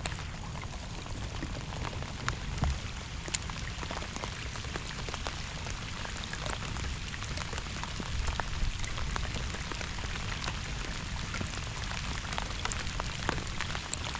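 Rain falling steadily, with many separate sharp drop hits scattered through it and a steady low rumble underneath.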